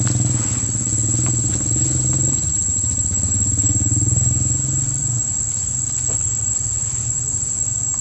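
A small engine running steadily, its low hum swelling and easing every second or so and growing a little quieter after about five seconds, with a constant high-pitched whine above it.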